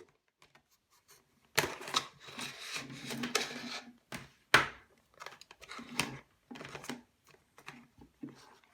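Plastic container and charger cables being handled: rustling and scraping of plastic, a sharp click about four and a half seconds in, then scattered lighter clicks.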